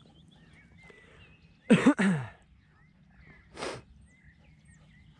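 A dog gives two quick barks, dropping in pitch, about two seconds in, then a short breathy snort about a second and a half later. Faint bird chirps sound in the background.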